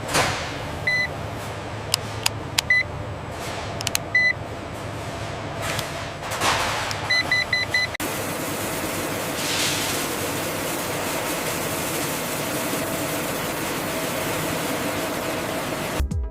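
Forklift running in a warehouse, with short electronic warning beeps, first single ones and then four in quick succession, and a few sharp clicks. Over the second half it settles into a steady machinery hum.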